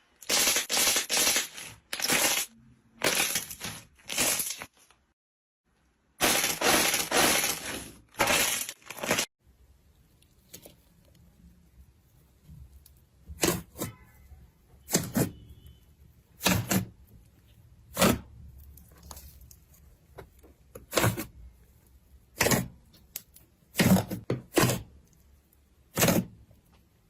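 Slime being pressed and squeezed: two stretches of dense crackling a couple of seconds apart, then a run of separate sharp pops and cracks about once a second.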